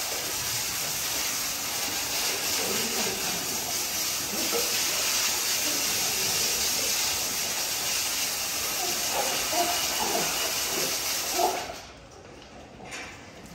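Steady hissing noise that cuts off suddenly near the end.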